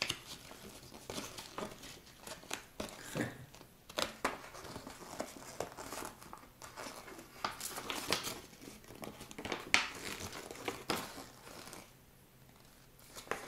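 Paper and foil packaging crinkling and rustling in the hands as a small folded leaflet and a foil chip pouch are handled and unfolded, in irregular crackles, with a short lull near the end.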